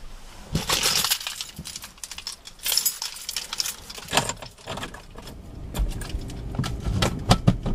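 Handling noises inside a car: an irregular string of sharp clicks, clinks and knocks, with short rustling bursts between them.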